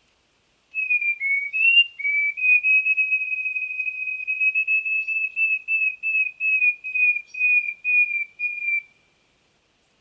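Flutist wren (Microcerculus ustulatus) singing a long series of pure, flute-like whistled notes at nearly one pitch. A few slurred notes open the song, then it runs on evenly, dropping slightly lower in pitch toward the end before stopping.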